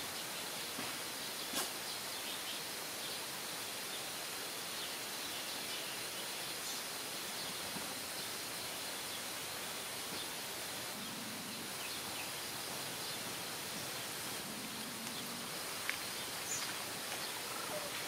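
Steady outdoor background hiss with a few faint, short bird chirps, and a soft click about a second and a half in and another near the end.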